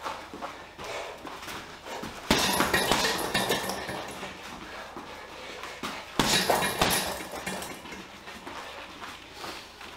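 Boxing gloves striking a Leone heavy bag in two loud flurries of punches, one starting about two seconds in and another about six seconds in, each trailing off over about a second, with lighter knocks and movement between.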